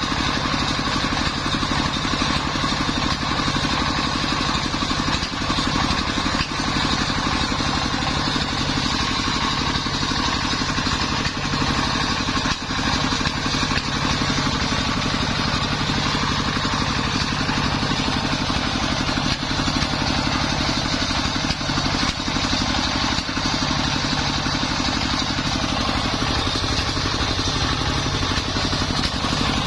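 Engine-driven portable circular sawmill running steadily, its engine droning at a constant speed without letting up.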